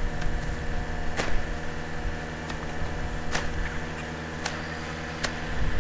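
A farm tractor's diesel engine running at a steady speed, with a few sharp clicks scattered over it.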